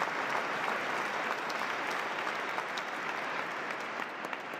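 A large congregation applauding in a cathedral: dense, steady clapping that thins out near the end.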